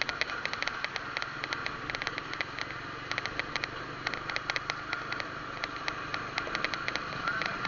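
Vehicle engines running in slow convoy traffic: a steady low engine hum with repeated bursts of rapid clicking.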